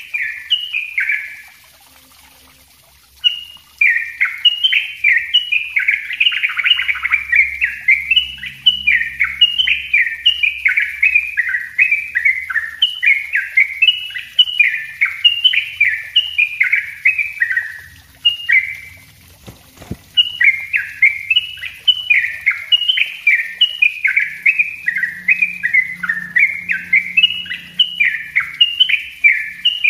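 Yellow-vented bulbul singing a fast, tightly packed run of short falling chirps, about three a second: the rapid 'ropel rapat' song. It breaks off briefly near the start and again about two-thirds of the way through.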